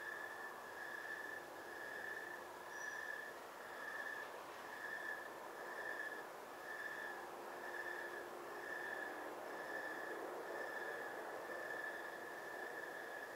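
A cricket chirping at night in an even rhythm, about one and a half high-pitched chirps a second, over a steady background hiss.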